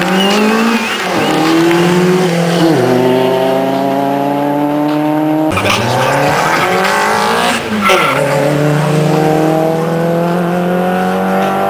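Two cars launching from a drag-race start line and accelerating hard, engines climbing in pitch with short drops at each upshift. The sound breaks off abruptly about halfway, and a second pair of cars launches and accelerates the same way.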